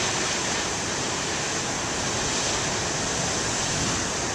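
Ocean surf from big waves breaking on the shore: a steady, unbroken rush of water.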